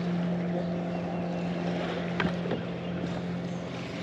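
Boat motor humming at a steady pitch, with one sharp click a little over two seconds in.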